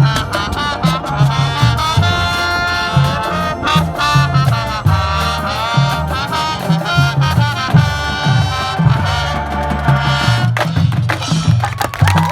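Marching band playing an up-tempo, Latin-flavoured passage: brass horn lines over a steady driving drum pattern.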